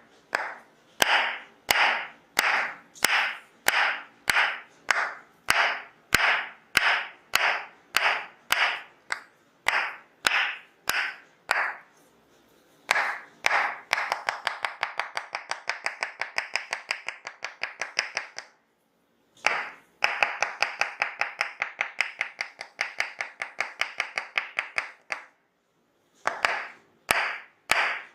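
Tok sen massage: a wooden mallet tapping a wooden wedge held against the body, each strike sharp with a short ring. Slow single taps about one and a half a second come first, then two runs of quick rapid tapping, each broken off by a brief pause, then slow taps again near the end.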